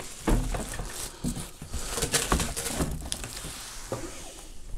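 Clear plastic bag around an air fryer crinkling and rustling, and its cardboard carton scraping, as the fryer is lifted out of the box; irregular rustles with a few short knocks.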